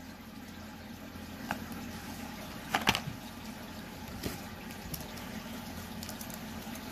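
Steady low background hiss with a few faint handling clicks, and a brief louder rustle and tap about three seconds in as a plastic carrot-shaped pen is set down among the gifts.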